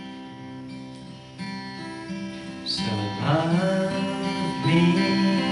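Background song: acoustic guitar playing, with a voice starting to sing about three seconds in.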